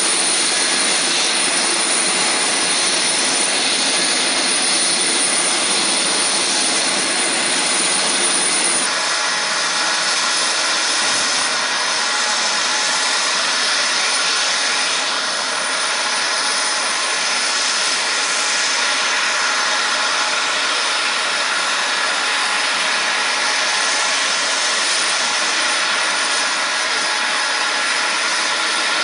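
Lockheed C-5M Super Galaxy's turbofan jet engines running steadily, a loud rush laced with steady whining tones. About nine seconds in, the highest whine stops and the lower rumble thins, then the engines run on evenly.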